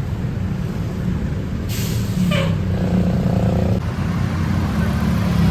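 A bus's diesel engine running with a steady low drone; a bit under two seconds in, a short hiss of compressed air from the air brakes, followed by a brief horn tone lasting about a second.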